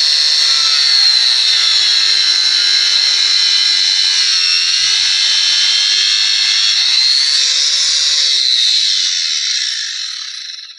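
Angle grinder with an abrasive iron-cutting disc cutting through a small block of wood: a loud, steady high whine that drops in pitch as the disc bogs down in the wood, rises again, then winds down and stops near the end. The disc is the wrong kind for wood and scorches the cut black.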